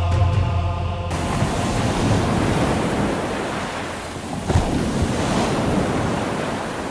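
Music cuts off about a second in, leaving a steady rushing noise like surf or wind that slowly fades, with one sharp click about four and a half seconds in.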